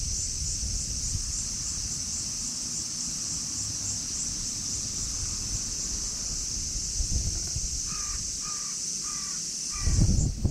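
A steady high-pitched insect chorus over low rustling and handling noise. Near the end come four short calls in quick succession, then a thump.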